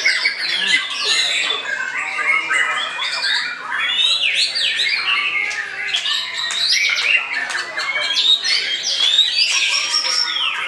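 White-rumped shama singing: a fast, unbroken stream of loud, varied whistles, slurred glides and rapid chattering notes, with other birds singing over it.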